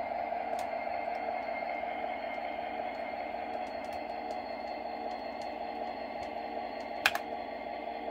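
Onboard sound system of an MTH DCS O-gauge model diesel locomotive playing a steady diesel engine hum with a whine as it runs slowly at a low speed step. Light keyboard clicks throughout, and one sharper key click about seven seconds in.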